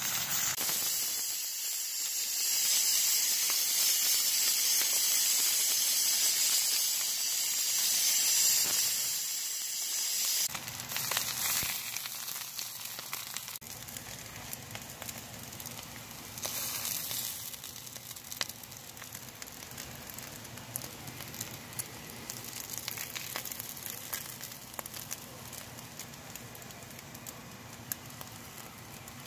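Hot oil sizzling in a frying pan around egg-coated patties shallow-frying. The sizzle is loudest for the first ten seconds, then drops to a quieter crackle with scattered small ticks and clicks.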